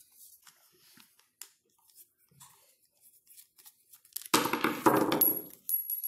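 Faint ticks and creaks of a screw being twisted by hand through a thin plastic sheet to poke a hole in it. About four seconds in come loud crackling and clicking as the thin plastic spacer is handled.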